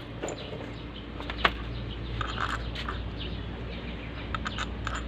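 Scattered metal clicks and clinks of hand tools and a bolt against engine parts while the idler gear is being bolted on, the sharpest about one and a half seconds in, over a steady low hum.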